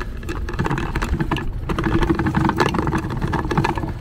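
Bicycle rolling over a brick-paver path, rattling in many quick clicks, with a low rumble of wind on the microphone and a steady hum for about a second in the middle.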